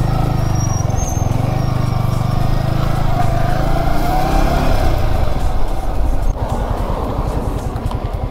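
Yamaha R15 V3's single-cylinder engine running at low revs as the motorcycle rolls slowly; about six seconds in it eases off to a steady idle.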